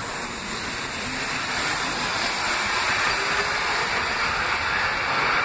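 New York City subway train pulling out of the station, its cars and wheels rolling past with a steady rushing, rumbling noise that grows a little louder as the last car goes by.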